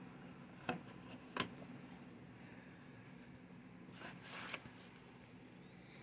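Handling of a plastic VHS cassette: two sharp clicks about a second in, then a short papery scrape near four seconds as the tape slides into its cardboard sleeve.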